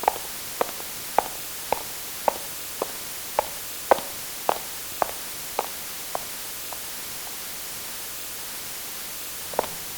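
Footsteps walking at an even pace, a little under two steps a second, growing fainter until they stop about two-thirds of the way in, over a steady hiss. A new run of footsteps starts near the end.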